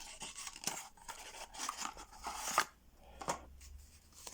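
Paper and packaging being handled and rustled while items are taken out of a box, with a few sharp clicks and a louder stretch of rustling about two seconds in.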